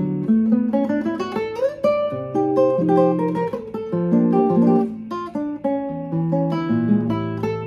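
Jose Antonio 6C Spanish-made classical guitar played fingerstyle: a melody of plucked nylon-string notes over sustained bass notes, with a quick rising run about two seconds in.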